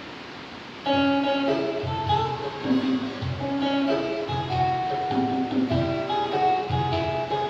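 Acoustic guitar starting to play about a second in: strummed chords in a regular rhythm with a changing melody of notes over them.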